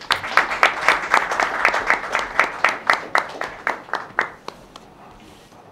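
A small group applauding in a room, with individual hand claps easy to pick out, dying away about four and a half seconds in.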